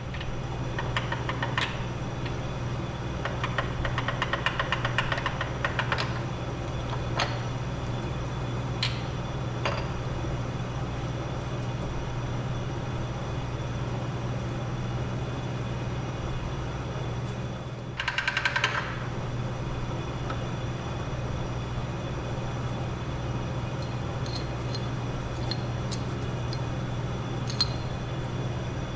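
A ratchet wrench clicks in short rapid runs while the main bearing cap bolts of a Detroit Diesel 3-53 are worked loose, with a few single metallic ticks between the runs. A steady low hum of shop machinery runs underneath.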